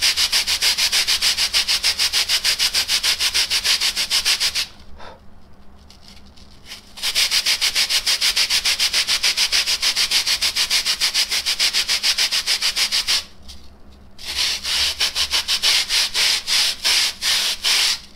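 Sandpaper rubbed by hand over a polyurethane foam block in fast back-and-forth strokes, several a second, sanding the foam down toward a marked line. It comes in three bouts, with short pauses about five seconds in and about thirteen seconds in.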